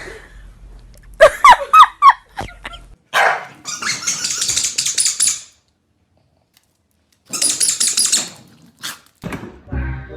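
A dog barking a few times, followed by two stretches of harsh noise with a sudden cut to silence between them.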